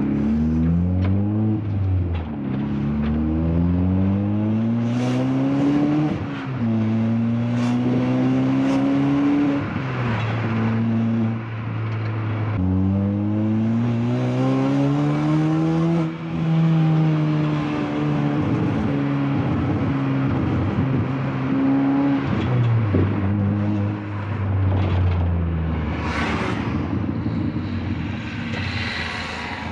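Mk6 Ford Fiesta's 1.6 Zetec-S four-cylinder engine through a new cat-back race exhaust, heard from inside the cabin while driving. The revs climb in pulls through the gears, with a drop at each change, then ease off and fall. It has a lower tone and is still blowing a little at its clamped joints.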